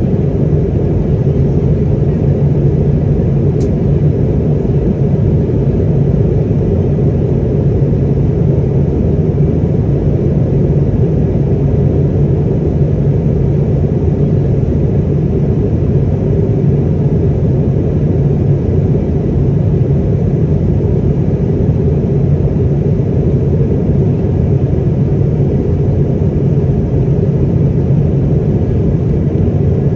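Steady low rumble inside the cabin of an Airbus A220-300 airliner in flight, from its Pratt & Whitney PW1500G geared turbofan engines and the airflow past the fuselage.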